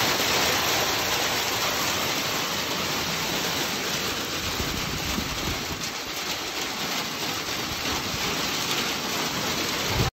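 Hail storm pelting a vehicle's metal roof and the ground outside: a dense, steady rattle of countless small impacts. A single thump near the end, as the door latch is handled.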